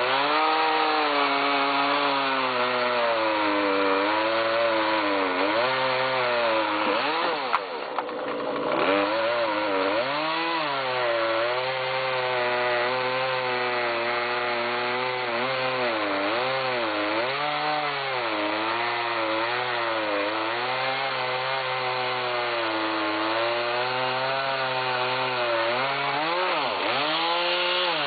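Chainsaw cutting down through stacked tulip poplar logs, its engine pitch wavering up and down as it works under load. About 7 seconds in the engine briefly drops off and comes back up, and it dips once more near the end.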